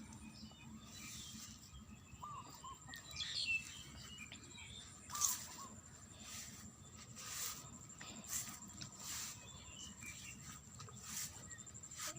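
Faint paddy-field ambience: a steady high-pitched insect drone, with a few short chirping calls and several brief rustling swishes.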